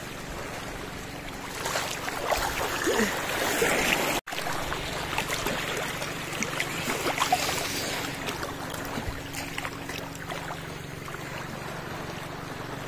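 Small waves at the water's edge washing in and drawing back, water swishing and fizzing as it swells and eases. There is a brief break in the sound about four seconds in.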